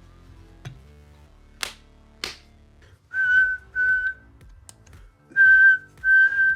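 Two sharp snaps, then a person whistling four short steady notes on one pitch, in two pairs, to set off a sound-activated dancing Coke can toy whose sound sensor does not respond.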